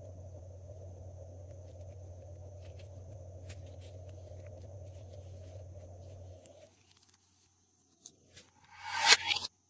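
Slime being handled, with faint sticky clicks over a steady hum. The hum stops after about six and a half seconds. Two small clicks follow, then near the end a short, loud crackling rasp.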